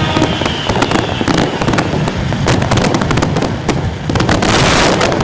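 Fireworks going off in a rapid, dense string of sharp bangs and crackles, with a longer hissing burst near the end.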